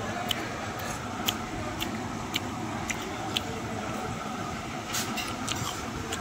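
A steady low background rumble, engine-like, with a series of short sharp clicks roughly twice a second.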